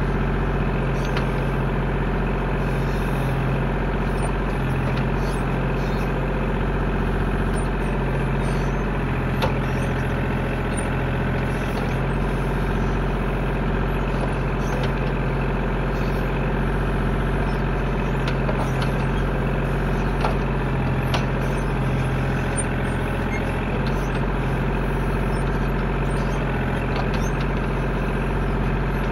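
Tractor engine running steadily at a constant speed, with a few light knocks over it.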